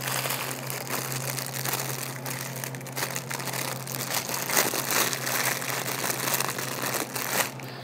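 Clear plastic parts bag being handled and crinkled, with scattered rustles and small clicks as fuel-line fittings are sorted.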